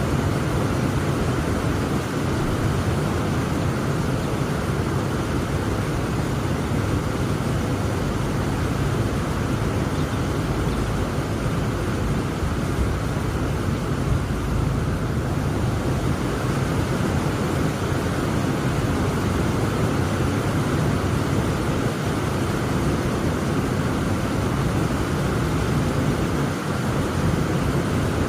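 Heavy rain falling steadily: a dense, even noise with most of its weight low down and no single drops or strikes standing out.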